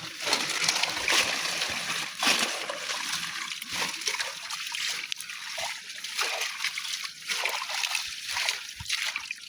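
Water splashing and sloshing: a run of irregular splashes in shallow water.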